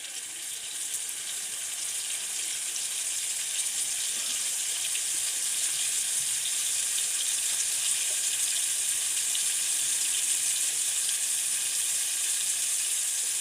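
Chopped onions frying in hot oil in a cooking pot, a steady sizzle that builds over the first few seconds and then holds even.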